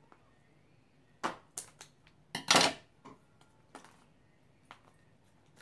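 Scissors snipping at the plastic wrapping on a blind-toy container, then the plastic container being handled and worked open: scattered short clicks and snips, the loudest a brief scraping noise about two and a half seconds in.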